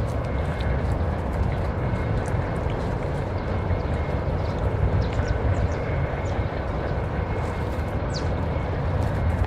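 A steady low rumble with a faint hiss, with a few faint ticks and a short high chirp near the end.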